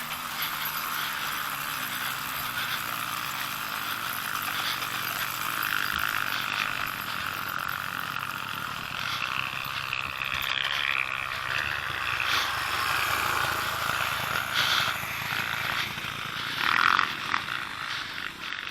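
Trail motorcycle engine running at steady, low revs.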